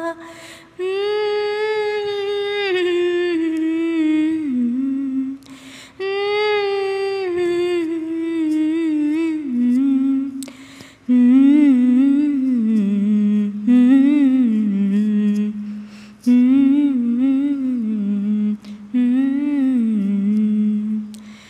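A woman humming a Telugu film-song melody unaccompanied, in about six phrases of held notes and wavering, gliding ornaments, with short breaths between them; the later phrases are shorter and more ornamented.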